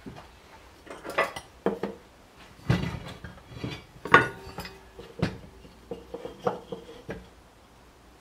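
Metal parts of an Elite Turbo Muin trainer clinking and knocking as they are handled during reassembly: a string of irregular clinks, some ringing briefly, the loudest about four seconds in.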